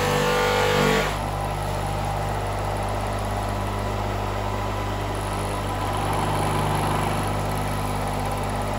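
Electric buffing motor running steadily with a low hum, its buffing wheel hissing against an aluminium motorcycle footstep bracket being polished after the anodizing was stripped. A higher whine in the first second stops abruptly.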